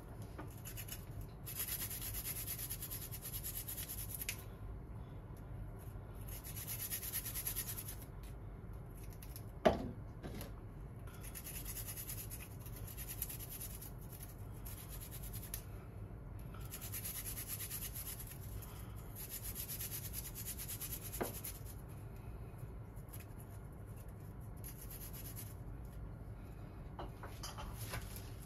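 Garlic cloves grated on a handheld plastic grater: several bouts of rapid rasping scrapes with pauses between them, and two sharp knocks, one about ten seconds in and one about two-thirds of the way through.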